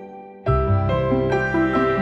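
Gentle instrumental background music. It dips almost out at the start and comes back in about half a second in.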